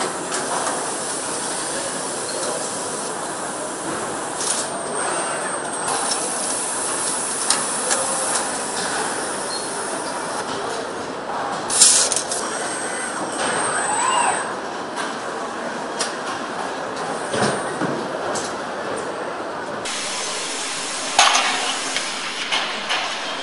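Engine assembly line machinery: a steady mechanical din with scattered clicks and clanks, and short hisses of air, the loudest about twelve seconds in and another near the end.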